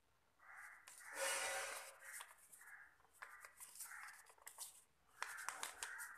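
Faint rustling and creasing of a sheet of white paper being folded by hand, with one louder rustle about a second in and light crackles and clicks near the end.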